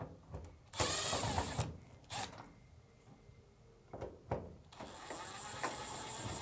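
Power screwdriver with a Phillips bit backing out the two screws that hold the door latch lever holder in a Samsung dryer: two runs of the driver's whining motor, a short one about a second in and a longer one near the end, with a few light knocks between.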